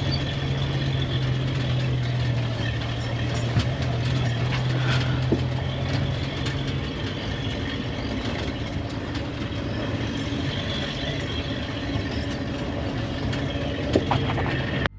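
Open safari vehicle driving, its engine running steadily under a constant rumble, with scattered rattles and knocks.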